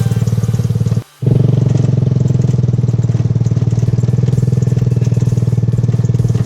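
Motorcycle engine of a three-wheeled samlor running steadily under way, firing in a fast, even pulse. The sound cuts out briefly about a second in.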